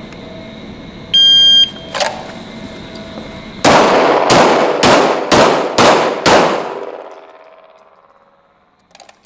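A shot timer's start beep, then a quick string of 9x19mm Glock 17 pistol shots about half a second apart, fired on the move. The shots echo in an indoor range and the ringing dies away over about a second and a half after the last one.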